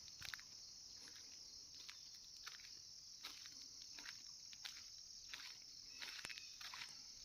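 Steady high-pitched chorus of insects buzzing without pause, with scattered faint clicks and rustles over it.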